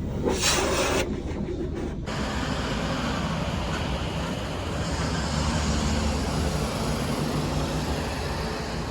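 Steady vehicle running noise: a low rumble under an even hiss, after two short bursts of rushing noise in the first two seconds.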